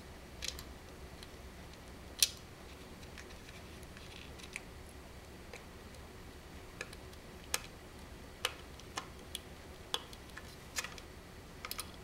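Scattered light clicks and ticks of a small collared screw being fastened into a plastic planetarium base by hand, with one sharper click about two seconds in.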